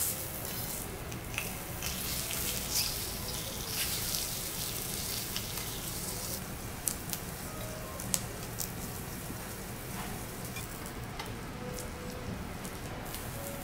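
Abalone sizzling on a teppanyaki steel griddle: a steady frying hiss that eases a little about halfway. Sharp clicks of the knife and tongs on the steel punctuate it, the two loudest about seven and eight seconds in.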